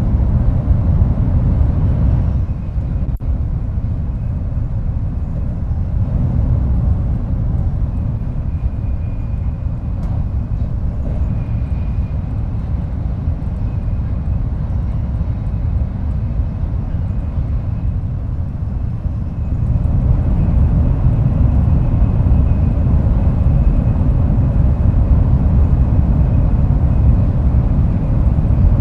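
Steady running rumble of a Shinkansen train heard inside the passenger car while it travels. The rumble grows louder about twenty seconds in, and a faint thin whine sits above it.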